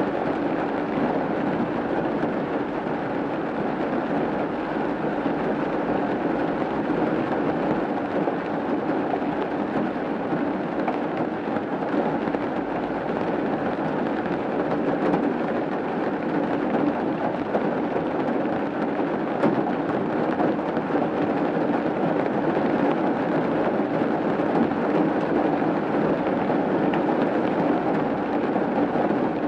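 Steady rain falling on a roof: a dense, even patter with no lulls or separate drops standing out.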